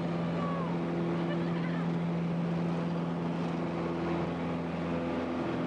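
Single-engine light aircraft's engine and propeller running with a steady low drone, heard from inside the cabin as the plane rolls along the runway.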